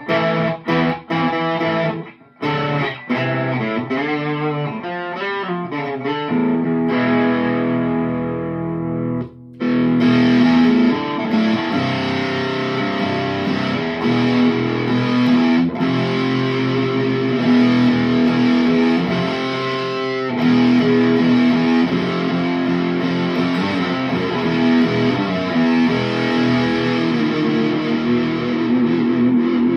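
Chapman ML1 Pro Hybrid electric guitar on its Seymour Duncan Pearly Gates bridge humbucker, played through a Boss Katana amp with heavy distortion. Short chopped chords at first, then held, ringing notes and runs, with a brief gap about nine seconds in and a vibrato note near the end.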